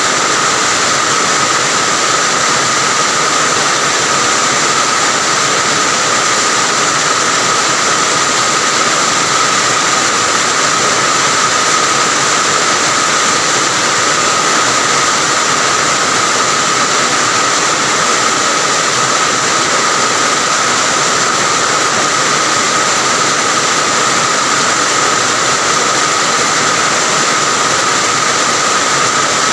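Heavy rain falling steadily, an even unbroken hiss, with a steady high tone running through it.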